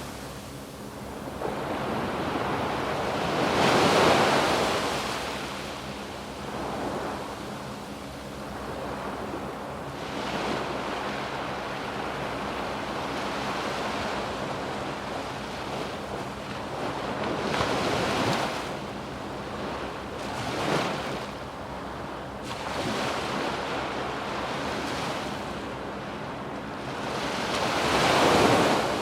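Waves breaking and washing up a sandy beach, each surge swelling and ebbing over a few seconds. The largest breaks come about four seconds in and near the end. Light wind noise on the microphone.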